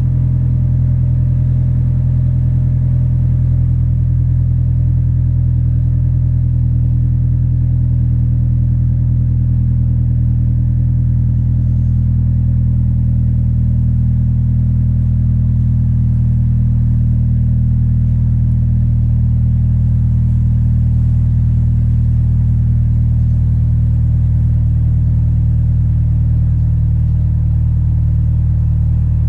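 Honda Civic engine idling steadily through an aftermarket exhaust with the resonator removed, giving a steady low drone from the tailpipe.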